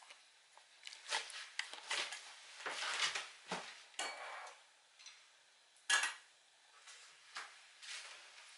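Kitchenware being handled: a stainless steel bowl and utensils clattering as they are moved and set down, with a run of clatters in the first few seconds and one sharp clack about six seconds in.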